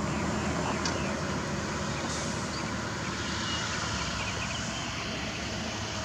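Steady low engine and tyre noise of a police sedan driving off down the road.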